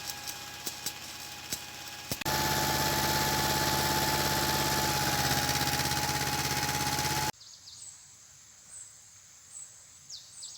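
MAN logging truck's diesel engine running steadily with light clicks. About two seconds in it jumps to a much louder, steady engine sound for about five seconds, then cuts off abruptly to quiet outdoor ambience with faint high chirps.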